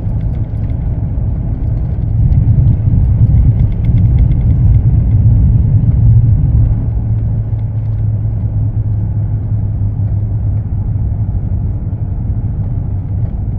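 A car driving at highway speed, heard from inside the cabin: a steady low rumble of engine and tyre noise with a hum, a little louder for a few seconds early in the drive.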